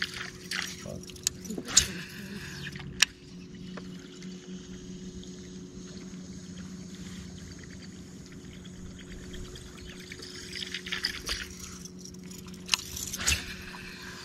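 Steady low electric hum of a bass boat's bow-mounted trolling motor. A few sharp clicks, the loudest about two and three seconds in, and short stretches of splashy hiss near the start and again near the end come from the angler casting and working a spinning rod.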